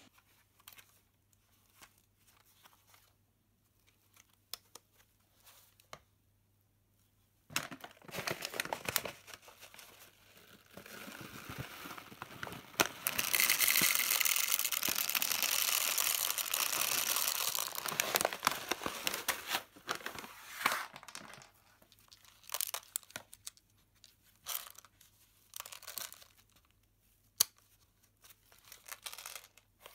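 Blue plastic bag of 6 mm airsoft BBs crinkling as the BBs are poured from its spout into an airsoft magazine's feed opening. The pouring makes a steady stretch of noise a little before halfway. Scattered rustles and clicks of handling come before and after it, and the first several seconds are nearly silent.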